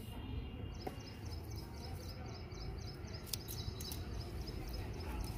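Outdoor background noise, mostly a steady low rumble, with faint bird chirps in the first moment and a couple of light clicks a little after three seconds in.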